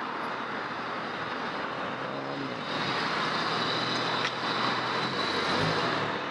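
A car driving up, its engine and tyre noise growing louder about three seconds in.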